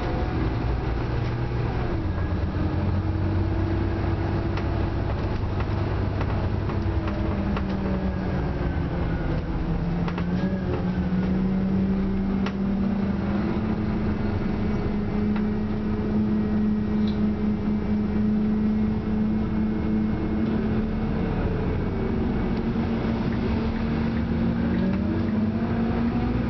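Scania Omnicity bus running on the road, heard from inside the passenger saloon: a steady engine and road noise whose engine note rises and falls a few times as the bus speeds up and slows.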